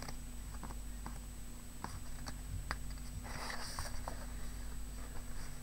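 Sheets of craft paper in a pad being handled and turned by hand: faint scattered light clicks and a brief papery rustle about three and a half seconds in, over a steady low hum.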